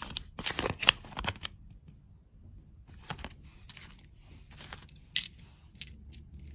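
Packaging crinkling and tearing for about a second and a half, then scattered light clicks and taps, with one sharper click about five seconds in.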